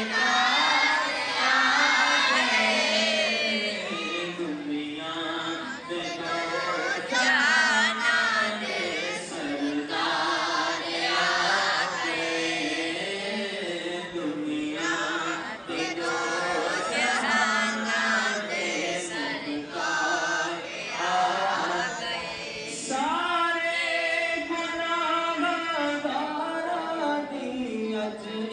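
A man chanting an Urdu naat, a devotional poem, solo and unaccompanied into a headset microphone. He holds long notes and winds the melody up and down.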